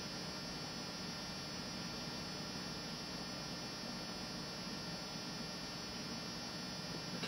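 Steady electrical hum with a buzzy edge, unchanging throughout.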